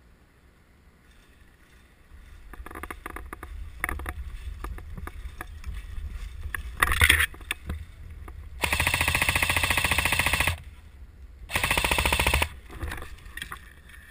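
Airsoft gun firing two full-auto bursts in a rapid, even rattle, the first about two seconds long and the second about one second, a moment apart. Scattered clicks and knocks come before them, with one louder crack a little before the first burst.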